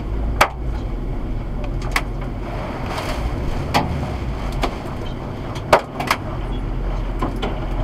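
Hailstones and rain striking the roof and windscreen of a Toyota LandCruiser Troop Carrier, heard from inside the cabin: irregular sharp knocks, about one every second or two, over a steady rumble and hiss of rain.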